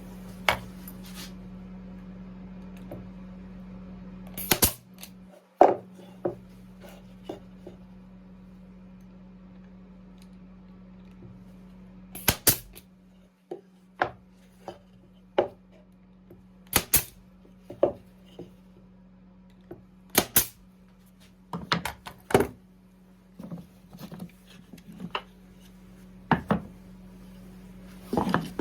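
Nails being driven into wood boards while a birdhouse is assembled: a series of sharp, irregular knocks, single or in quick pairs, a second or two apart, over a steady low hum.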